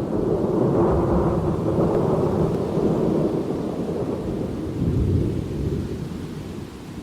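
Thunder rumbling: a long, deep roll that carries on from a clap just before and slowly dies down toward the end.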